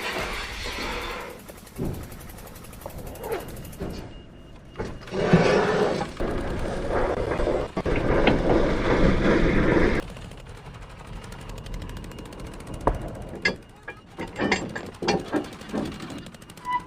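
Working machinery and equipment noise. A loud steady rushing starts about five seconds in and stops abruptly about five seconds later, followed by scattered sharp clanks and knocks.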